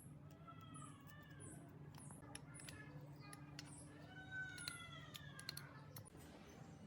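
A cat meowing faintly, two drawn-out meows that glide in pitch, the second about four seconds in, over a low steady hum.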